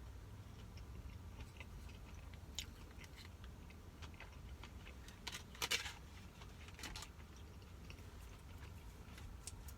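Person quietly chewing crunchy roll sushi: faint mouth sounds with scattered small crunches and clicks, and a few louder ones near the middle.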